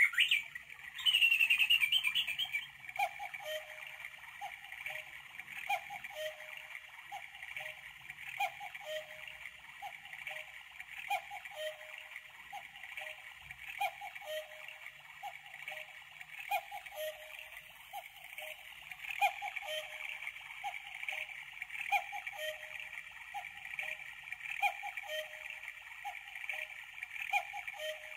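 Battery-operated Engstler cuckoo clock playing its electronic hourly cuckoo call: a two-note call repeated over and over, roughly once a second, over a steady brighter chirping, hissing background, louder for the first second or two.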